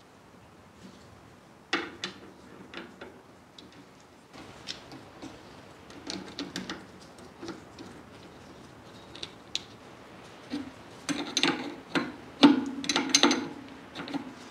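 Steel hydraulic fittings and an open-end wrench clinking against a hydraulic valve block while a hose is connected and tightened. Scattered sharp metallic clicks and taps, with a denser run of clanks near the end.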